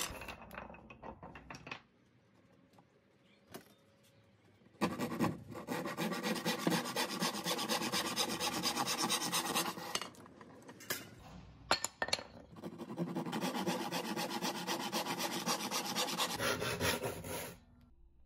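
Japanese hand saw cutting through a 19 mm wooden dowel held in a wooden guide block, in quick back-and-forth strokes. There are two runs of sawing, each about five seconds long, with a short pause and a couple of sharp knocks between them.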